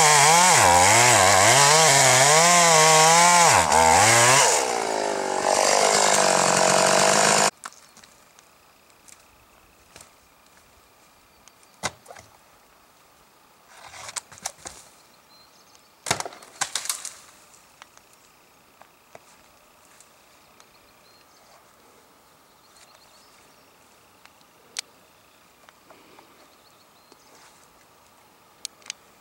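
Large chainsaw cutting into the trunk of a big tree, its pitch rising and falling under load, easing a little about four seconds in, then cutting off abruptly. After that it is quiet except for scattered knocks and scrapes of wood being handled, with two short clusters of them near the middle.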